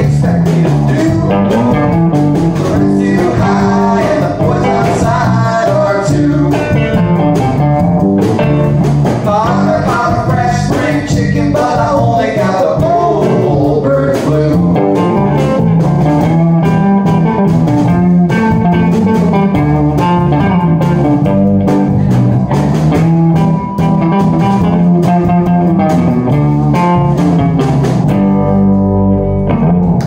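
Live blues-rock band playing loudly: electric guitars over a bass line and a drum kit. Near the end the drums stop and the band holds a final ringing chord.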